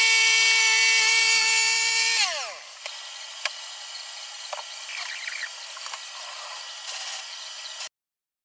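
A machine motor running with a steady high whine, then switched off about two seconds in, its pitch sliding down as it spins down. Faint clicks and knocks follow, and the sound cuts off abruptly near the end.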